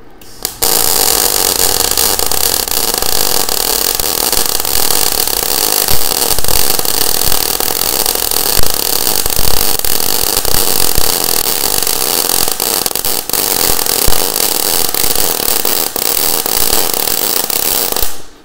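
MIG welding arc from a Weldinger MEW 201 SYN ECO multiprocess inverter welder running solid wire with shielding gas, laying a bead on steel. It is a loud, steady hiss full of rapid crackles that starts about half a second in and cuts off just before the end.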